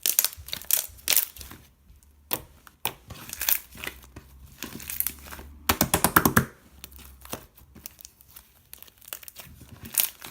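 Irregular crinkling and crackling, like something being crumpled and handled, with a denser run of crackles about six seconds in.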